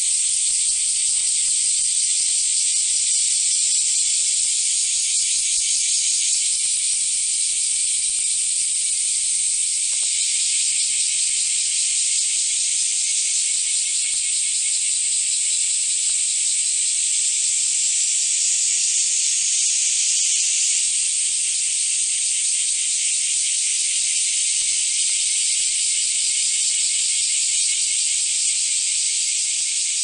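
Loud chorus of cicadas, a dense, steady, high-pitched buzz with a fine pulsing texture that shifts slightly as individual insects start and stop.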